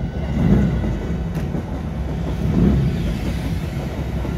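JR 205 series electric commuter train passing over a level crossing, a steady low rumble of the cars on the rails that swells about every two seconds.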